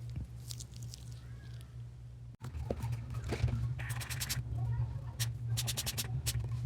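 Short scratching and rubbing strokes as a mobile phone is cleaned by hand, over a steady low hum. The strokes are faint at first and come in quicker, louder runs in the second half.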